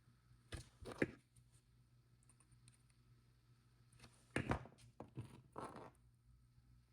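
Faint handling noises of beading work: short scrapes and clicks of small jewelry tools and components being handled, in two brief clusters, one about a second in and another around the fifth second.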